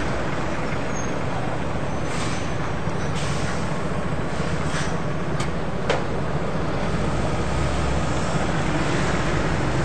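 City bus drawing up and standing at a stop with its engine running, a low steady hum over street traffic. A few short hisses come in the first half, and there is a sharp click about six seconds in.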